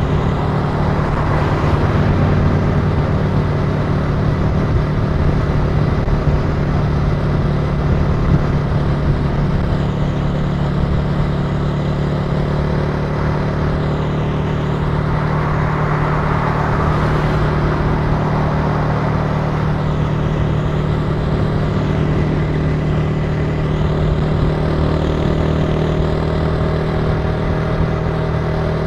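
Italika TC300 motorcycle engine running at a steady note while cruising, heard from the rider's seat, with road and wind noise. A swell of rushing noise comes about halfway through.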